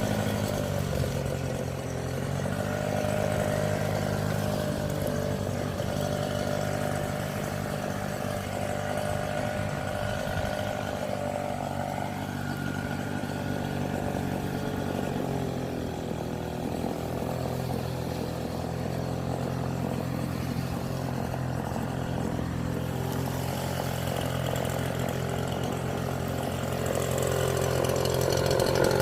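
Leaf blower's small engine running steadily, its pitch shifting a little now and then, growing louder near the end.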